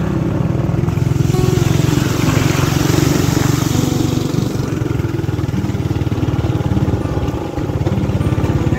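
Small motorcycle engine running steadily while ridden on a dirt track, heard from the saddle as a rapid, even low pulse. A rushing hiss rises about a second in and fades out before halfway.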